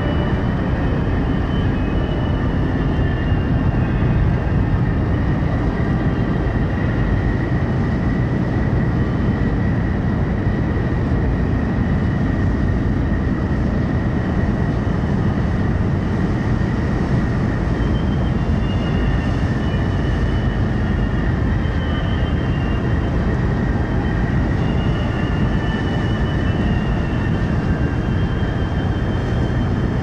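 Steady heavy rumble of ship diesel engines and churning propeller wash from a harbour tug pushing against a car ferry, with strong wind buffeting the microphone.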